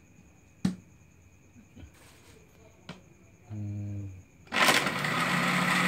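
A sharp click, then about four and a half seconds in an electric countertop blender is switched on and runs loudly and steadily, blending a drink.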